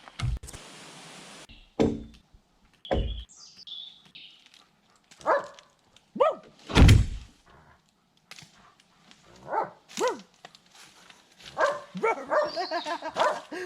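A dog barking in short separate barks, mixed with several heavy thuds; the loudest thud comes about halfway through.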